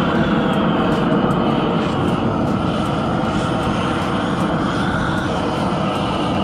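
Gas roofing torch burning with a steady rushing flame, heating a bitumen torch-on membrane to bond it to the primed roof.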